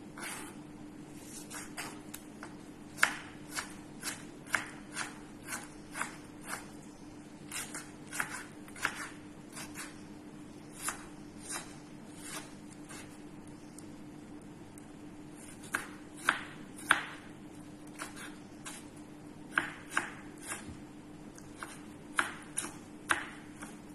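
Kitchen knife cutting a tomato on a wooden cutting board: sharp knocks of the blade hitting the board, in irregular runs of a few strokes with a short pause in the middle.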